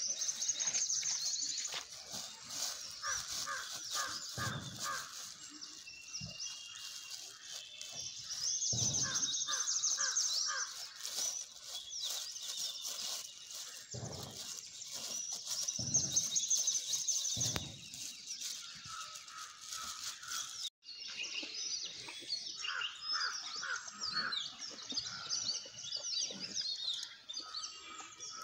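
Many small birds chirping and twittering, with repeated trills. Scattered clicks and a few short, low thuds come through now and then.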